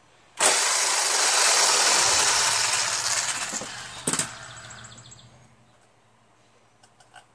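Corded electric drill running on the mower's rear wheel hub to back out the wheel's fastener: it starts abruptly, runs loud for a few seconds, then winds down, with a single knock just after it lets off.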